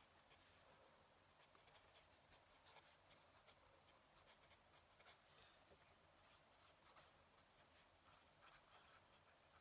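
Faint scratching of a fountain pen nib writing on paper, in short irregular strokes.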